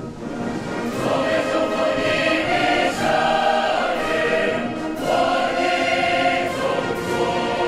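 A massed choir singing with music behind it, in long-held, full-voiced phrases, with sharp strikes about every two seconds.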